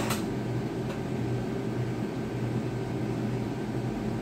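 Steady low hum under an even hiss, with a short click right at the start and a fainter one about a second in.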